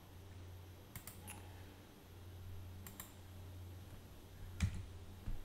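A few separate clicks from a computer keyboard and mouse, spaced a second or more apart, over a faint steady low hum.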